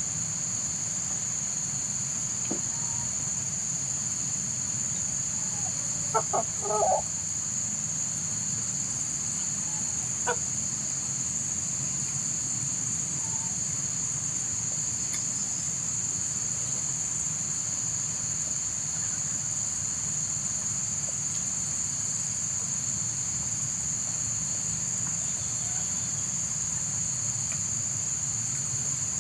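Night insects, crickets, trilling steadily in a continuous high chorus. A short cluster of louder sounds comes about six seconds in.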